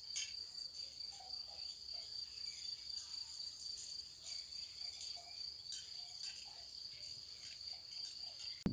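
Crickets singing: a faint, steady, high-pitched trill that runs on without a break, with a few faint scattered ticks.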